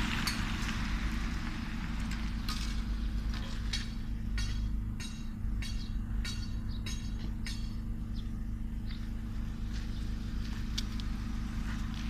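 Steady low hum of a backhoe's diesel engine running, with a string of sharp clicks and knocks from work on the concrete kerbs, clustered in the middle of the stretch.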